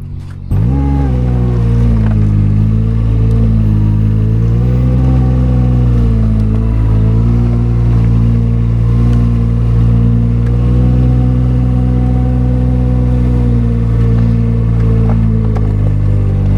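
Front loader's engine coming in loudly about half a second in, then running under varying throttle, its pitch rising and falling a few times before holding steady.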